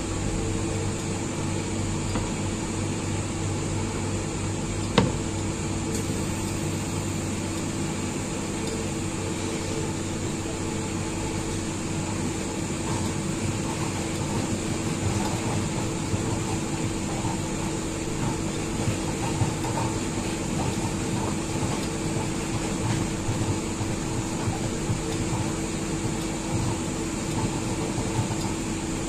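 Steady hum of a fan or appliance motor, with one sharp click about five seconds in.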